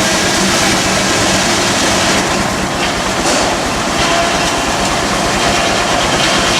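Steam traction engine driving a belt-powered sawmill: steady, loud machinery noise with a faint whine entering about four seconds in.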